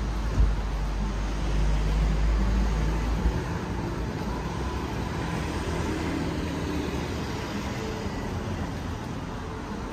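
Street traffic going past: a steady mix of car engines and tyre noise, with a heavy deep rumble through the first three seconds that stops suddenly.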